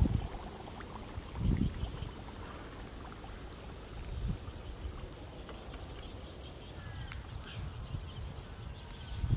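Wind rumbling on the microphone in low gusts, the strongest a little after a second in and again about four seconds in. Near the end a high, thin insect trill comes in, with a few faint bird chirps.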